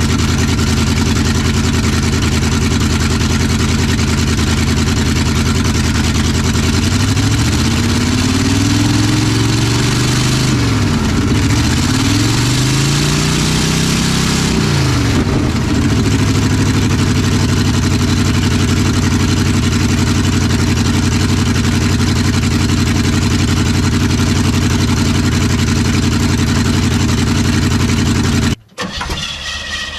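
Car engine idling steadily, revved up and back down several times between about seven and sixteen seconds in, then settling back to idle. The sound drops out briefly near the end.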